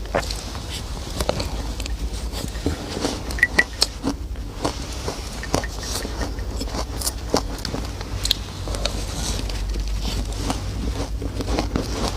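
Ice being bitten and chewed close to the microphone: irregular sharp crunches and crackles, several a second at times, over a steady low hum.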